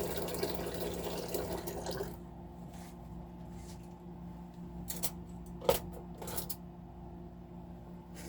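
Kitchen tap water running, shut off about two seconds in, followed by a few light clinks of dishes or utensils over a steady low hum.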